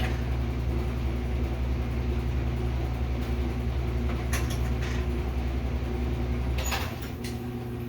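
A steady low mechanical hum from a kitchen appliance cuts off with a click near the end. A few light clicks and clatters come a little past halfway, while the cutting-out electric stove burner is being handled.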